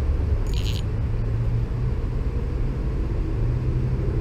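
Steady low rumble with a faint hum underneath, and a brief higher hiss about half a second in.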